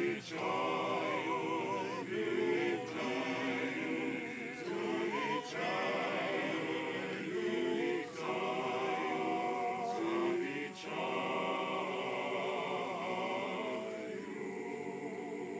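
Men's choir singing a cappella in several parts, in phrases of a few seconds each; near the end the higher voices drop away and a low chord is held.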